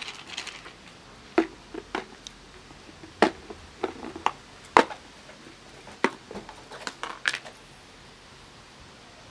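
Sharp clicks and knocks of a plastic clip-lid food container being handled on a concrete floor and opened: about ten separate clicks over several seconds, stopping about two seconds before the end.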